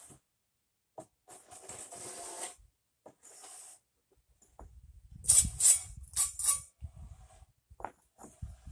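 Bedding sand under driveway pavers being scraped and levelled with a board: a series of short gritty scrapes, louder in the second half, over an irregular low rumble from about halfway.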